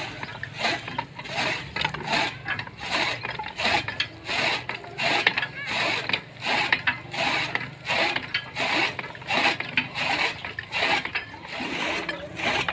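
Hand-cranked toka fodder chopper with a large iron flywheel, turned steadily while its blades slice green fodder. It makes a rhythmic chopping clatter about twice a second, with gear and ratchet noise from the mechanism.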